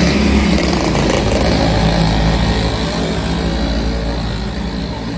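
A motor engine running with a steady low hum, slowly getting quieter.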